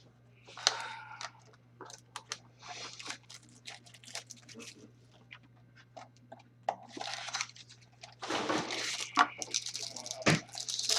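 Trading card packs and cards being handled: irregular crinkling and rustling of wrappers with quick clicks and slides of cards, busier toward the end, over a faint steady hum.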